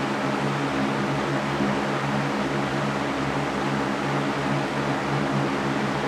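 Electric fan running steadily: an even rush of moving air over a low motor hum.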